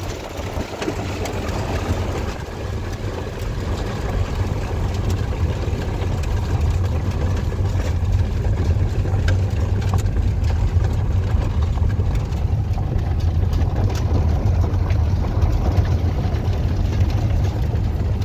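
Steady low rumble of a car's engine and tyres heard from inside the cabin while driving on a freshly laid gravel road, growing gradually louder over the first few seconds, with occasional faint ticks.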